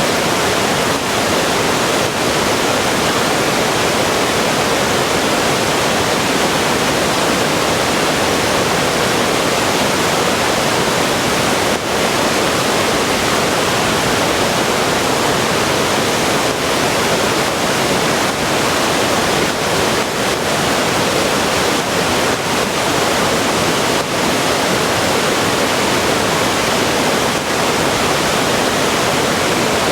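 Waterfall on a river: a steady, loud rush of falling and churning water.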